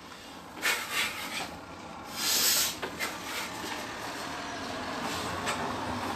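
Swishes and footfalls of a person moving through a martial-arts form on a wooden deck, with one loud hiss about two seconds in, over a steady background rumble.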